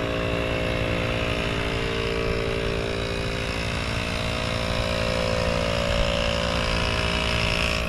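Portable air compressor running steadily with a fast, even pulsing, inflating a tire.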